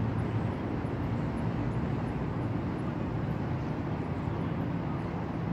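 Steady low outdoor rumble without distinct events.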